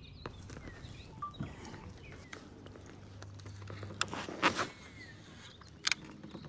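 Quiet outdoor ambience with faint bird chirps, broken by a few short knocks and noisy bursts about four seconds in and again near six seconds.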